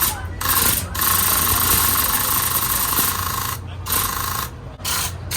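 Hissing spray in bursts of about half a second to two and a half seconds, each starting and stopping sharply, over a steady low hum.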